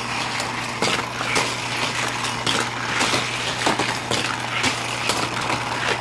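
Motorised toy car track booster running with a steady low hum, with irregular sharp clicks and clatters of toy cars being launched and rattling along the plastic track.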